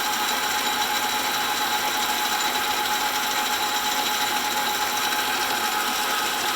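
9-inch South Bend Model A metal lathe running steadily with the spindle turning but not yet cutting: an even mechanical hum with a steady whine from the motor and drive.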